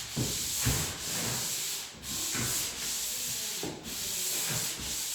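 Drywall joint compound being sanded by hand in long scraping strokes, a hiss that rises and falls about every second or two.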